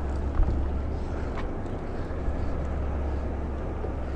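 Steady low rumble aboard a small boat at sea, with a few faint ticks.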